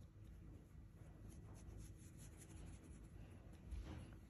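Near silence with faint scratchy rubbing of a hand stroking a dog's fur close to the microphone, and a soft thump near the end.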